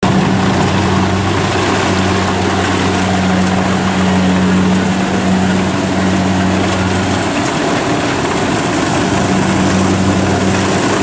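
Diesel engines of rice harvesting machinery, a Kubota DC70 combine harvester and a tracked grain cart, running steadily with an even, unchanging hum.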